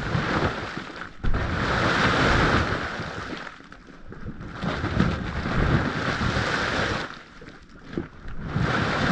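Mud volcano venting steam in surges: a rushing hiss over a low churning rumble from the boiling mud pool. It eases off briefly twice.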